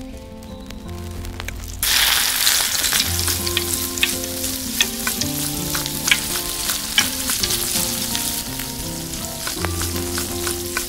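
Hot oil in a miniature steel wok bursts into sizzling about two seconds in as food goes into the pan. It keeps frying steadily while a tiny spoon stirs, with light clicks and scrapes of metal on the pan.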